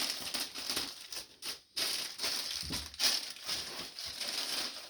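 Plastic bag crinkling and rustling as it is handled and torn open to get at the clothing inside.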